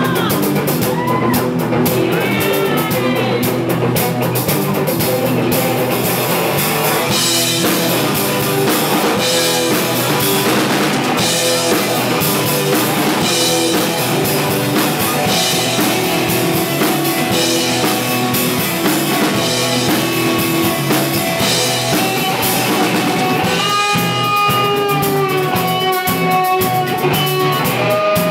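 Small rock band playing live: a drum kit keeping a steady beat under acoustic and electric guitars. Held, slightly bending melodic notes come in about four seconds before the end.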